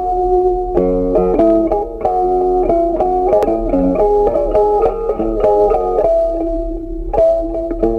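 Background music: a plucked guitar melody over lower bass notes, at a steady moderate pace.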